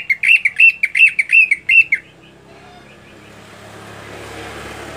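Caged cucak ijo (green leafbird) singing a fast run of about seven loud, sharp notes over two seconds, each bending down in pitch, then stopping. A low background rumble slowly swells after it.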